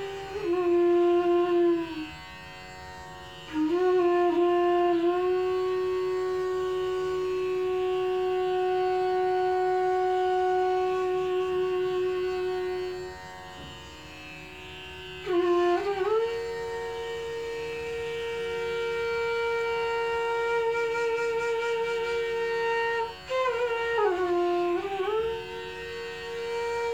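Bansuri (bamboo flute) playing slow Indian classical phrases: a few long held notes joined by gliding, ornamented bends in pitch, over a steady drone.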